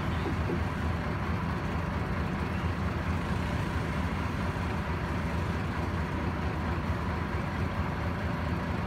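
Boat engine running at a steady speed: an even, low drone with no change in pitch or level.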